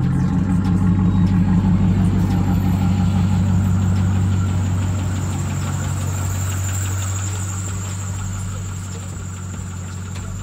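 Pontiac Firebird Firehawk's LS1 V8 idling as the car creeps slowly past, getting a little quieter in the second half, with a steady high-pitched belt squeal that the owner puts down to a worn serpentine belt.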